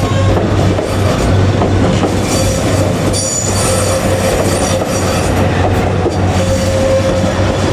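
Seven Stars in Kyushu cruise train, hauled by a DF200 diesel-electric locomotive, rolling past with a steady low engine drone and wheel noise on the rails. A high wheel squeal comes in about three seconds in.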